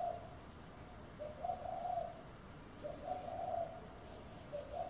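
A dove cooing repeatedly, one soft coo roughly every second and a half.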